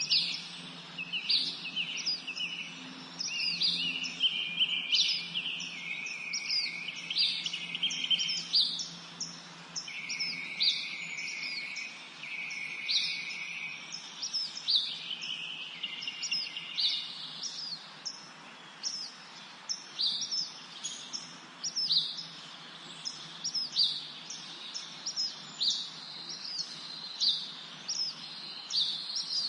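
Several songbirds singing and chirping together: many short, quick downward-sweeping chirps repeated densely, with trills underneath in the first half, over a faint low hum.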